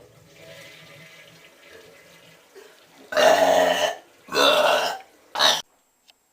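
A girl belching loudly three times in quick succession: two long burps about three and four and a half seconds in, then a short one, after a few seconds of a quieter rough, hissy sound.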